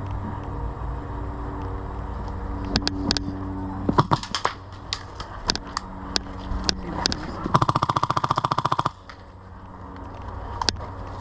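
Airsoft guns firing: scattered single shots, then a rapid full-auto burst of about a second and a half from an airsoft rifle that cuts off suddenly. A steady low rumble runs underneath.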